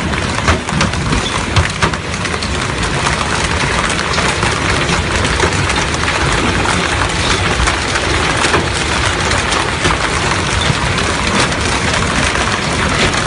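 Heavy downpour of rain, a loud, steady rush with a dense patter of drops striking hard surfaces.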